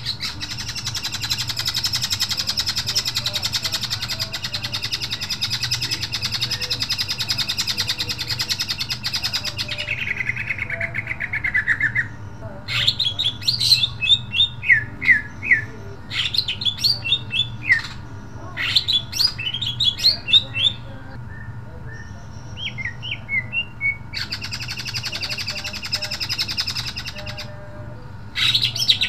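Caged male greater green leafbird (cucak ijo) singing loudly. A long, fast rattling trill lasts about ten seconds and slides down in pitch at its end. Then come bursts of sharp, rapid high notes with short pauses, and a second rattling stretch near the end.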